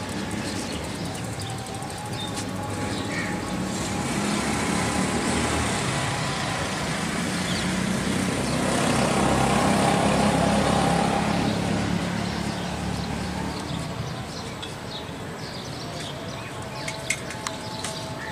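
Road vehicle noise that swells to its loudest about halfway through and then fades, as a vehicle passes close by.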